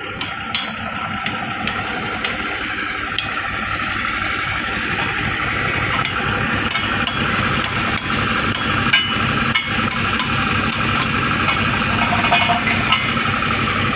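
An engine running steadily, with scattered short metallic clicks and knocks over it.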